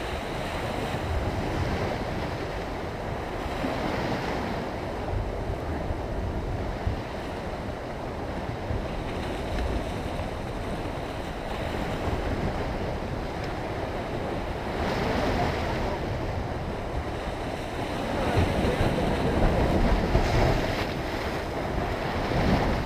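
Ocean surf breaking and washing against a rocky shore, a continuous rush that swells louder several times, most strongly near the end.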